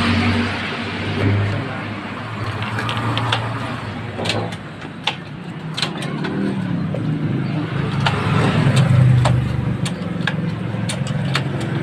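A motorcycle engine idling steadily, growing louder for a moment about eight seconds in. Over it come scattered sharp metallic clicks and taps.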